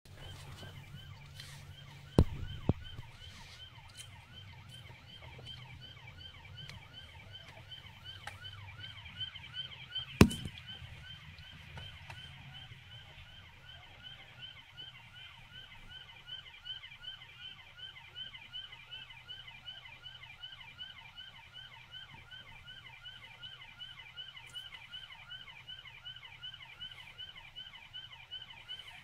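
Police siren on a fast yelp, quick rising-and-falling sweeps repeating several times a second, over a low hum that fades about twelve seconds in. A few sharp knocks cut through, two about two seconds in and the loudest about ten seconds in.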